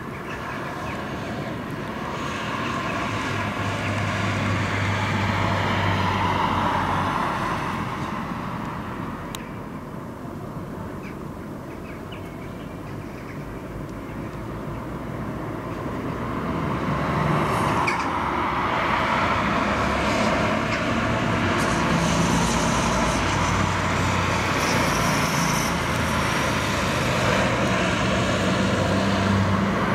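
Distant roar of an Antonov An-124-100's four Progress D-18T turbofan engines as the jet flies its approach, swelling about six seconds in, fading somewhat, then building again from about sixteen seconds in.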